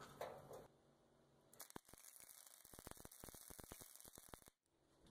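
Faint, fast, irregular crackle of a wire-feed welder's arc welding a steel caster plate to square steel tubing. It starts about a second and a half in and stops shortly before the end.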